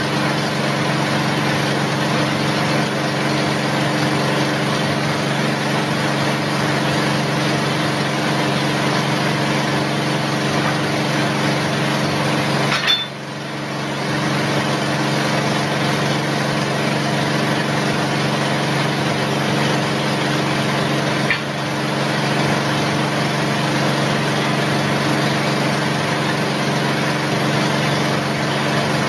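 Steady hum of a running machine, engine-like, with a hiss over it. The sound drops briefly about halfway through and dips again, less, about three-quarters through.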